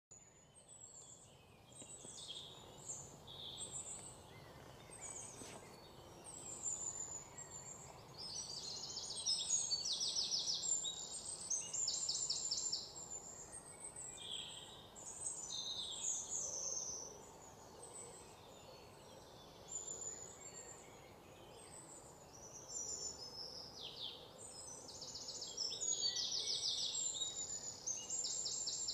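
Songbirds chirping and singing, several overlapping high chirps and fast trills of rapidly repeated notes coming in bursts, busiest about a third of the way in and again near the end.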